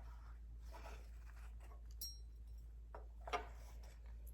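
Faint handling of a handmade book with metal covers: soft rustles, a brief light ring about two seconds in and a small knock a little after three seconds, over a steady low hum.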